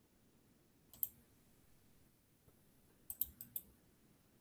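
Faint computer mouse clicking: a single click about a second in, then a quick run of four clicks near the end.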